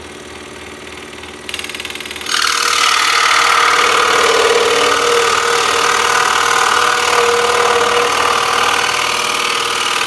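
Axminster Trade scroll saw running, its blade cutting a thick wooden block. The sound steps up about a second and a half in and gets much louder just after two seconds as the blade works through the wood, then holds steady.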